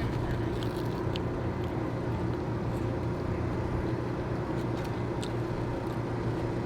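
Steady low hum of a motor vehicle engine running, with a few faint small ticks.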